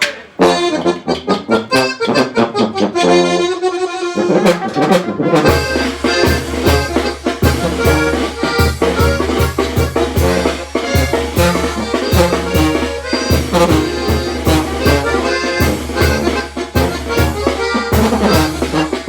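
Instrumental intro of accordion-led Mexican regional band music: sparse accordion lines and struck notes at first, then the full band comes in about five seconds in with a bass line and a steady beat under the accordion.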